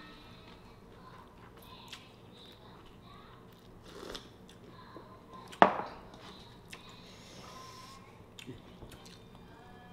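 Quiet sounds of a meal eaten by hand: faint chewing and scattered small clicks of bowls and dishes, with one sharp knock about five and a half seconds in.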